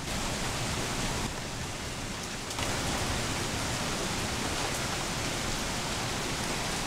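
Steady heavy rain falling and splashing, an even hiss that grows a little louder about two and a half seconds in.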